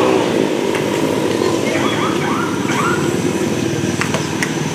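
A small engine running steadily nearby, briefly revving up near the start.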